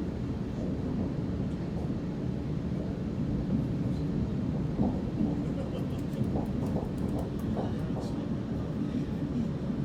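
Waratah A-set electric suburban train heard from inside the carriage while running between stations: a steady low rumble of wheels on rail, with scattered light clicks and knocks in the second half.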